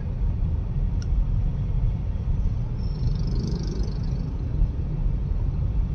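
Steady low rumble throughout, with a faint higher sound about three seconds in.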